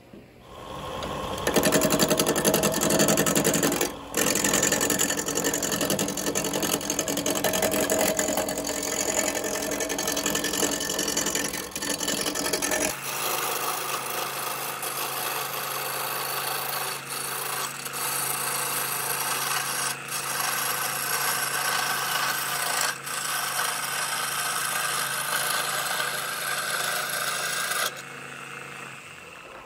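A wood lathe spinning a block of old wood while a hand-held turning tool cuts into it, giving a continuous rasping scrape. The sound changes abruptly about halfway through, losing its low rumble, and the cutting stops near the end, leaving a quieter run.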